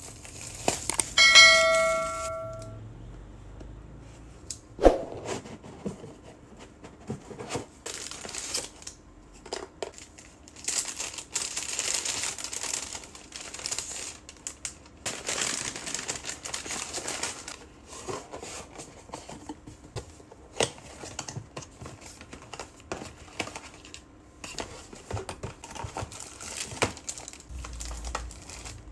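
Plastic shrink wrap and packaging being torn and crinkled while a cardboard box is opened and its contents unpacked, with scattered knocks and clicks from handling. A short bell-like chime of several tones sounds about a second in.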